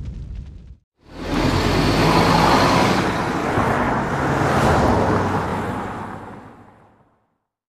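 Road traffic noise of vehicles passing, swelling twice and fading out near the end. It follows a deep rumble that cuts off just under a second in.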